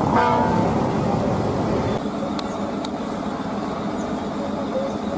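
Diesel engines of large coach buses running: a deep rumble from one bus, with a short pitched sound right at the start. About two seconds in the sound changes suddenly to a quieter engine running, with a couple of faint clicks.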